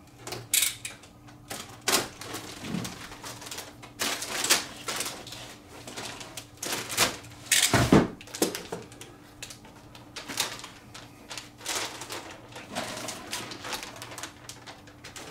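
Plastic packaging rustling and crinkling, with irregular clicks and light knocks of parts being unwrapped and handled, and one louder knock about eight seconds in.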